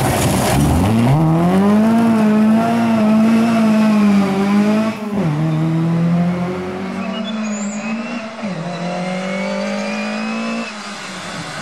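Lada rally car's four-cylinder engine accelerating hard out of a corner, its pitch climbing, then changing up a gear about five seconds in and again about eight and a half seconds in. Tyres scrabble on loose gravel at the start.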